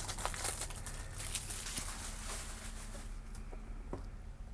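Hands handling a vape's retail packaging: plastic wrapping crinkling and rustling with quick small clicks and taps, thinning out after about three seconds.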